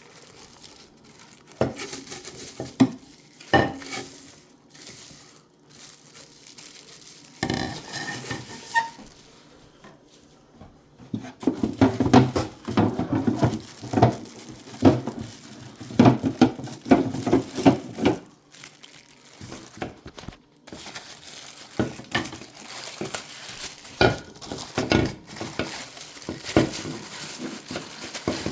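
The hard plastic tank and lid of a new humidifier being handled: irregular knocks, clatters and rattles of plastic parts, with some packaging crinkling. The handling is busiest around the middle.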